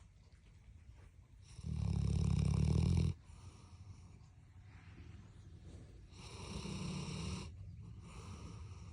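Dog snoring in its sleep: a loud snore about a second and a half in, then a softer one about six seconds in, with quieter breathing between.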